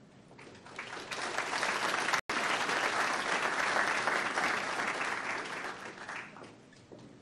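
Audience applauding: the clapping builds over the first second or two, holds, then fades away near the end, with a momentary break in the sound about two seconds in.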